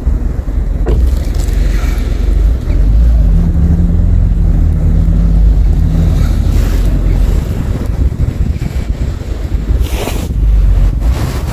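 Blizzard wind buffeting the microphone: a loud, uneven low rumble that runs throughout.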